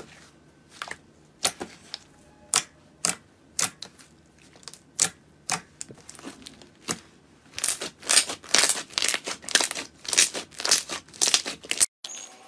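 Slime being pressed and worked by hand, giving sharp pops and crackles. Single pops come about every half second, then a dense run of crackling pops follows, cut off suddenly near the end.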